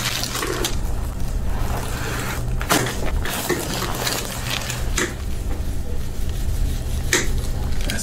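Hands shifting and rubbing on the skin and the paper-covered table while the neck is held and positioned for a chiropractic neck adjustment, with a few short sharp clicks, the strongest near the end, over a steady low hum.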